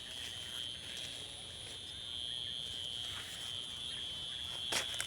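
A steady high-pitched insect drone, one unbroken tone, with a short sharp knock near the end.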